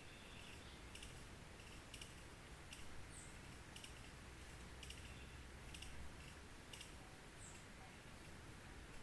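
Faint outdoor ambience of a small stream: an even wash of water noise, with short sharp bird chirps and clicks about every second and two brief high falling calls.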